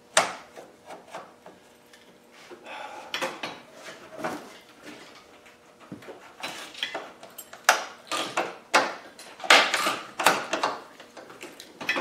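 Irregular clicks, knocks and light metallic rattles of hands working at a Land Rover Defender's rear door and lock, handling small metal items. The sounds come in clusters, busiest in the second half.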